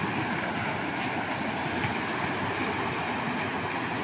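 Floodwater of a swollen river rushing steadily past.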